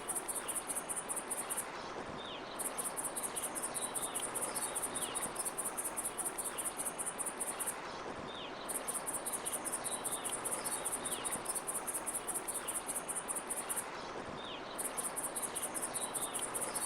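Crickets chirping in a rapid, high-pitched trill that breaks off for about a second roughly every six seconds, over a steady background hiss with faint short falling chirps.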